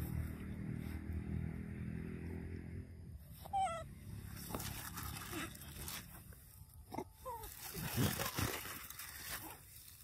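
Young macaques giving short, high whimpering squeaks: one wavering squeal about three and a half seconds in, then a few brief calls near the end. A low rumble sits under the first few seconds.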